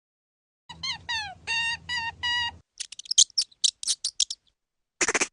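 Animal calls: five short pitched calls, the first two sliding downward and the rest held on one note, followed by a run of rapid high chirping clicks and a brief hiss near the end.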